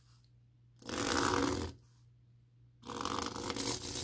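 Gel pen tip scratching across the woven aida cross-stitch fabric in two long downward strokes while gridding: one stroke about a second in, the next starting near three seconds and still running at the end.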